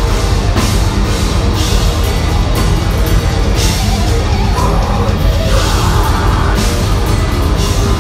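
A live heavy metal band playing loud: distorted electric guitars, bass and a drum kit, with cymbal crashes about once a second, heard from the crowd.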